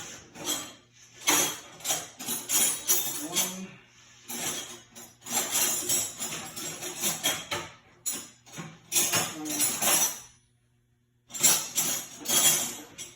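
Loose metal tools and sockets jingling and clinking in irregular bursts, with a pause of about a second near the end.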